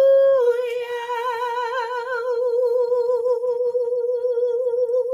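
A woman's voice holding one long high note, level for the first half second and then wavering with a steady vibrato.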